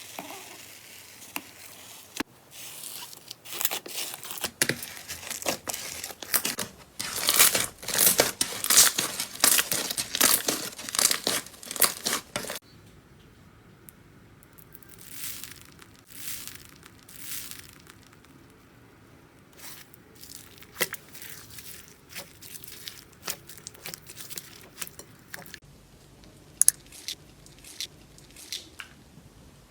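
Slime being handled and pressed by hand: a dense run of sharp crackling pops for about ten seconds. It then changes suddenly to quieter handling with scattered clicks and pops.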